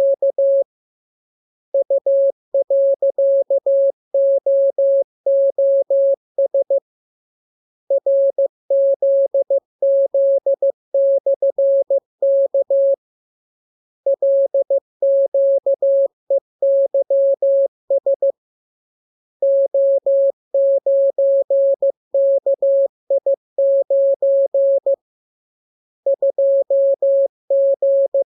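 Morse code practice signal: a single steady tone a little below 600 Hz keyed on and off in dots and dashes, sent in groups of characters about five seconds long with a pause of about a second between groups.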